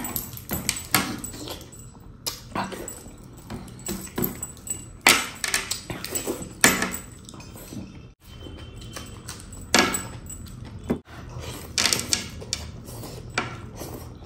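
Close-up eating sounds: wet chewing and lip-smacking, with irregular sharp clicks, as mutton curry and rice are eaten by hand and a mutton leg piece is bitten into. Metal rings and chains clink now and then.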